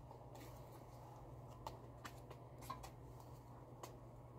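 Near silence: room tone with a low steady hum and a few faint ticks.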